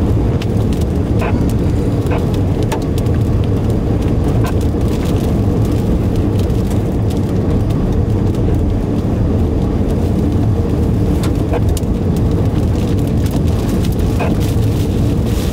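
Car driving, heard from inside the cabin: a steady low rumble of road and engine noise with scattered light ticks.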